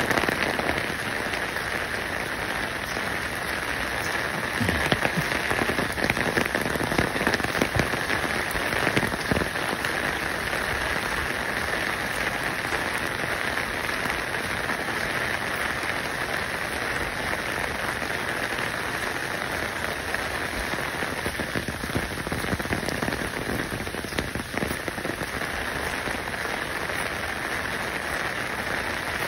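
Steady rain falling, an even hiss with scattered crackles and no pauses.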